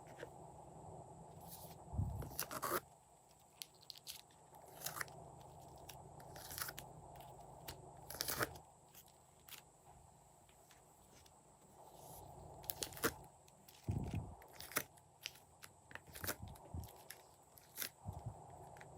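Glossy slime being worked by hand, with irregular sticky pops, clicks and crackles.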